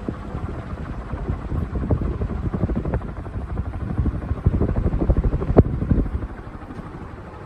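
Air from a running National F-560A1 industrial ceiling fan buffeting the microphone in rapid, uneven low thumps over a steady low rush. It is loudest about four to six seconds in and eases off near the end.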